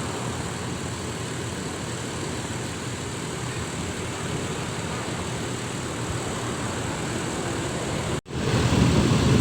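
Bus engine running at idle, a steady low rumble. The sound breaks off abruptly about eight seconds in, then comes back louder.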